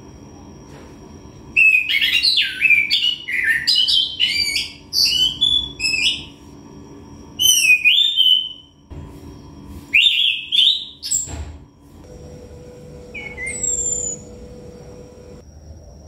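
Caged chestnut-capped thrush (Anis Kembang) in full song: quick runs of varied, sweeping whistled notes, delivered in several phrases with short pauses between them.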